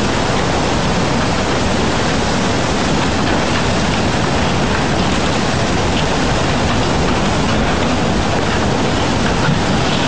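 Tsunami floodwater surging through a town: a loud, steady rushing of water with no letup.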